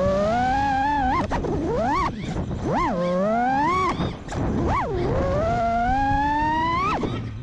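Brushless motors and props of a 5-inch FPV freestyle quadcopter whining, the pitch swinging up and down with the throttle: quick blips and dips, then a long climb that drops off sharply near the end.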